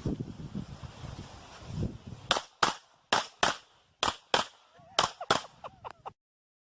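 Pistol shots fired as four quick double-taps, the two shots of each pair about a third of a second apart, with about a second between pairs; the sound cuts off abruptly soon after the last pair.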